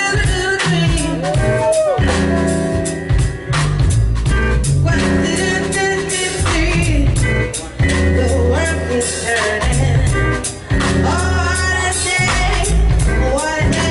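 Live jazz band: a woman singing into a microphone, with gliding sung phrases, over keyboard, steady drum-kit strokes and sustained low bass notes.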